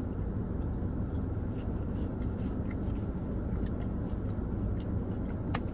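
A person chewing a mouthful of sandwich, with small scattered mouth clicks and a sharper click near the end, over a steady low hum inside the car.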